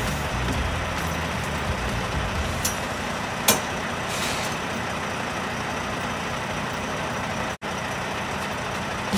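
Diesel semi-truck tractor idling steadily, with one sharp click about three and a half seconds in.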